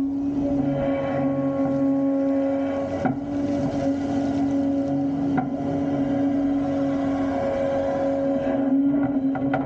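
Volvo excavator's engine and hydraulics running with a steady hum, under the rushing, scraping noise of the bucket digging into and spilling crushed concrete rubble. Two sharp knocks stand out, about three seconds in and again about five and a half seconds in.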